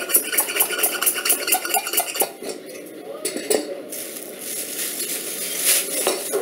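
A small metal hand tool tapping rapidly against a stove's metal burner, about six clicks a second. About four seconds in, it gives way to a plastic carrier bag rustling as the stove is pushed into it.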